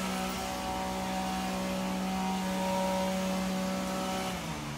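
A motor running with a steady hum, then winding down in pitch and stopping near the end.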